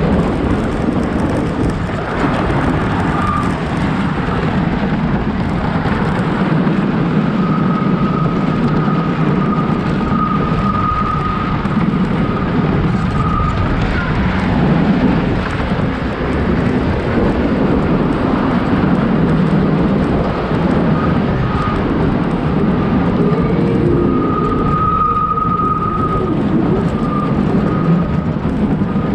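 Wooden roller coaster train running along its wooden track: a loud, steady rumble of the wheels and rushing air, with a high squeal that comes and goes, strongest for a few seconds about a third of the way in and again near the end.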